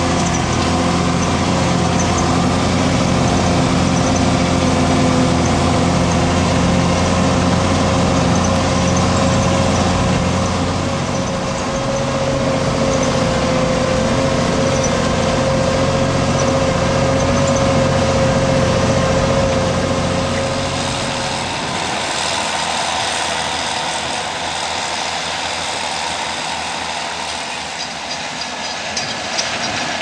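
County 1174 four-wheel-drive tractor's diesel engine running steadily under ploughing load, pulling a four-furrow reversible plough, heard close up from on board the tractor. About twenty seconds in the sound changes to a quieter, more distant engine noise.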